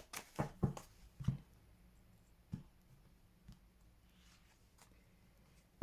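Oracle cards being handled and drawn: a quick cluster of short card taps and flicks in the first second and a half, then two lone ticks.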